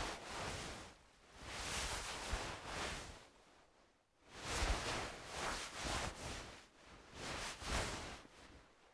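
Wool fabric being moved and rubbed: a series of soft rustling swishes, about four in a row with short pauses between them.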